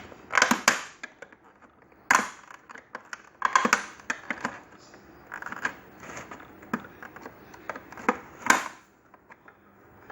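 Irregular plastic clicks, knocks and cracks as a part of a Hitachi CV-W1600 vacuum cleaner's housing is pried loose with a screwdriver.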